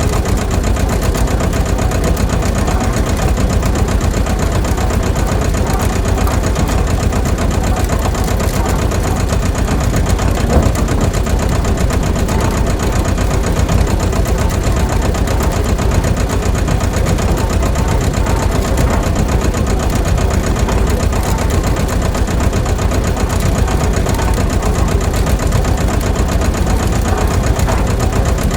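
A small motor running steadily with a fast, even rhythm.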